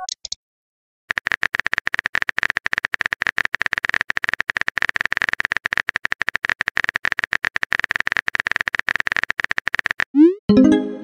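Phone keyboard typing sound effect: rapid, uneven clicks for about nine seconds. Near the end comes a short rising swoosh and a pitched message notification tone.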